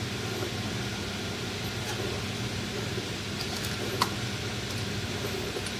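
Steady low mechanical hum of a workshop, with a few light clicks and one sharp click about four seconds in.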